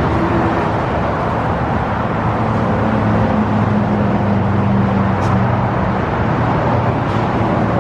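Steady road traffic noise, with a vehicle engine's low drone from about two to six seconds in.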